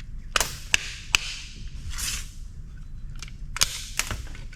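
Several sharp clicks and knocks, with a brief rustle about two seconds in, from small metal and plastic parts being handled while a cooler is taken apart for scrap.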